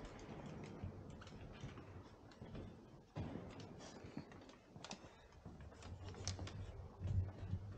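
Scattered light clicks and taps of footsteps and small movements in a quiet, echoing church, with a dull thump near the end.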